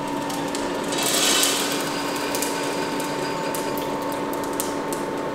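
Freshly roasted coffee beans dropping out of a ROEST sample roaster's drum into its cooling tray: a rattling rush about a second in, then scattered clicks of beans settling. The roaster's motors hum steadily underneath.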